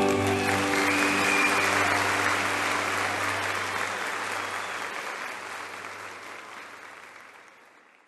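A live worship audience applauding as the song's music stops. A low held note lingers under the clapping for the first few seconds, and the applause fades out steadily near the end.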